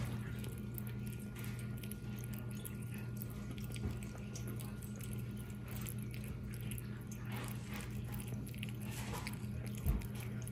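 Kitten chewing and licking soft ground meat from a bowl: faint, irregular wet clicks and smacks over a steady low hum, with one soft thump near the end.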